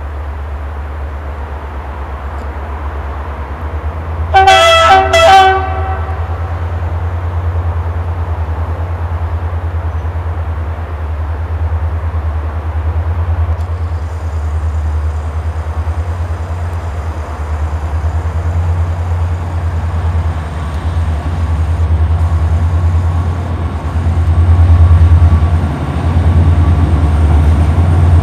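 Diesel locomotive approaching slowly with its engine running as a steady low rumble, sounding two short horn blasts about four seconds in. The rumble grows louder near the end as it comes closer.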